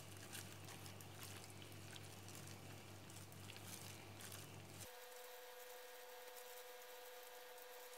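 Faint, soft squishing of gloved hands rubbing chilli paste into salted cabbage leaves, over a low steady hum. About five seconds in, the hum cuts off abruptly and a thin steady higher tone takes its place.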